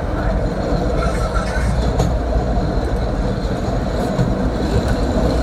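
Chicago 'L' Green Line train running along the elevated track, a steady low rumble of wheels on rail with a few sharp clicks. It is heard from inside the car.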